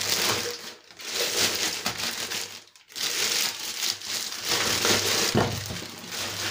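Plastic packaging crinkling as it is handled, in a few long stretches with brief breaks between them.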